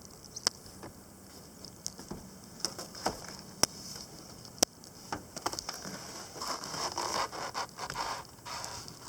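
Handling noises as someone moves about: a few sharp clicks spread through, light scraping, and a stretch of rustling about six to eight seconds in.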